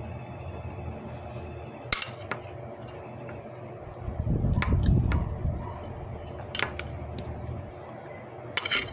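Eating by hand from a plate: a few sharp clinks of fingers and food against the plate, over a steady low hum. Around the middle comes a louder, low, muffled stretch of chewing close to the microphone.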